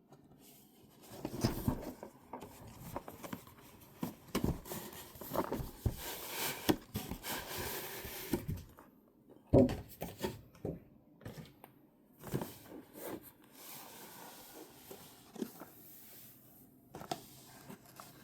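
A collectible card box and its packaging being opened by hand: rustling, tearing and crinkling, with light knocks and clicks of cardboard being handled, a longer tearing sound around the middle and a sharp knock just after it.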